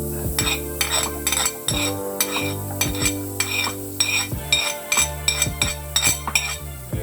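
Cooking utensil stirring food in a pan, with repeated sharp clinks of metal against the pan, a few a second, over background music.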